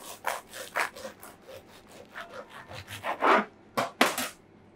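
Kitchen knife sawing back and forth through a crusty toasted baguette sandwich, the crust crunching with each stroke. The strokes stop about four seconds in.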